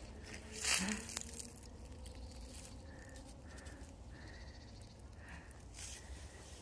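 Rustling and crunching of dry fallen leaves on a forest trail, loudest in one burst about a second in, over a steady low rumble; a few faint short high tones sound from about three seconds in.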